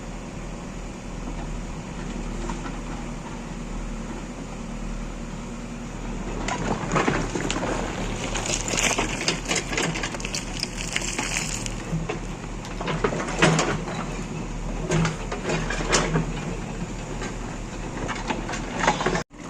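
Diesel engine of a JCB 3DX backhoe loader running steadily. From about six seconds in, repeated crunching, scraping and knocking are heard, typical of a bucket digging into earth and stones, with a hiss in the middle.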